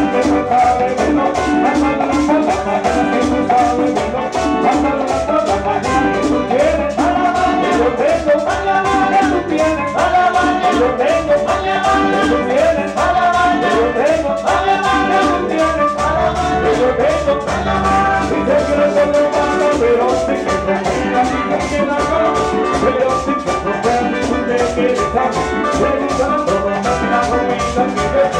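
Live band playing dance music with a steady beat and repeating melodic phrases.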